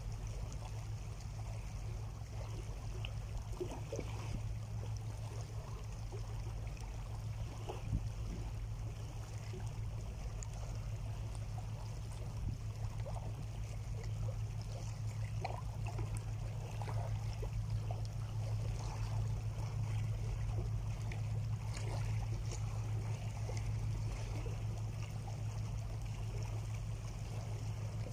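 Small sea waves lapping and trickling among shoreline rocks, with scattered small splashes and a steady low hum underneath throughout.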